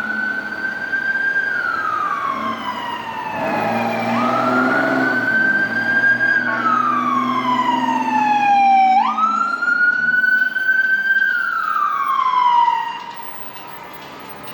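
Emergency vehicle siren wailing in three slow cycles. Each one rises quickly, holds high, then glides down over a couple of seconds. A vehicle engine hums underneath, and the siren drops away near the end.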